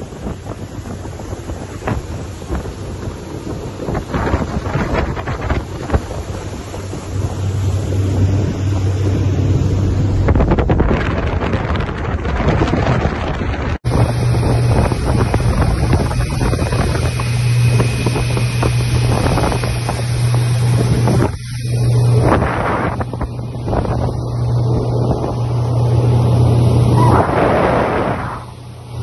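Motorboat under way: its engine drones steadily while wind rushes over the microphone and water hisses past the hull. The sound changes abruptly about halfway through, the engine drone louder after the change.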